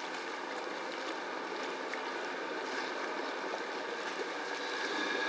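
Boat engine running with a steady hum, with water washing around the hull; the hum grows a little louder near the end.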